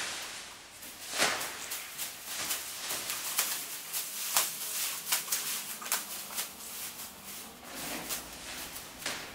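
Plastic bags crinkling and rustling in an irregular run of short crackles, several a second, the loudest about a second in.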